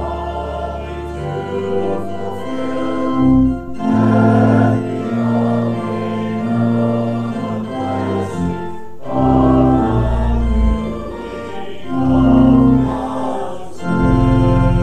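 Church organ playing a hymn in held chords, with the congregation singing along; the phrases run about five seconds each with short breaks between them.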